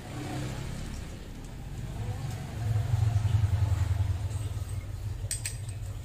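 A motor vehicle's engine running with a low hum that swells louder for a couple of seconds mid-way and then eases off. A few sharp metallic clicks come near the end.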